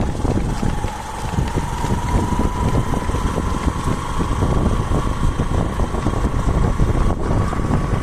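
Low rumbling vehicle engine and wind noise on the microphone, with a faint steady whine that slowly rises in pitch.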